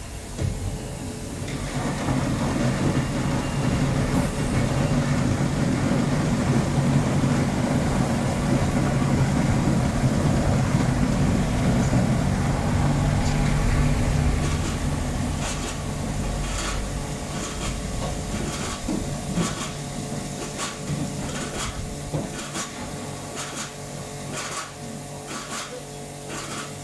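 Machinery of a mobile apple press running, with apples carried up the elevator into it. A steady mechanical noise with a low hum grows louder about two seconds in, eases off about halfway, then goes on more quietly under a run of sharp clicks and knocks.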